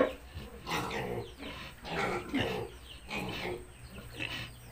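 A Large White sow in labor grunting, a run of short grunts about one or two a second, the first the loudest.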